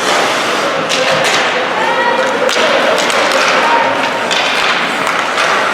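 Ice hockey game in a rink: four or five sharp thuds and knocks from play on the ice, over a steady din of crowd and players' voices with the echo of the arena.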